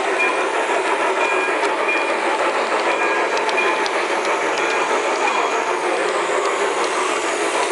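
Garden-scale LGB model train running along its track, heard from on board a flatcar: a steady rolling rumble of wheels on rail with scattered short clicks.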